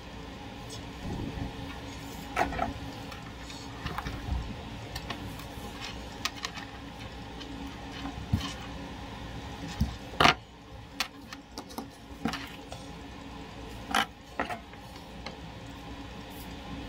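Small clicks, taps and rustles of wires and a small relay being handled and soldered on a desk, with sharper knocks about ten and fourteen seconds in, over a faint steady hum.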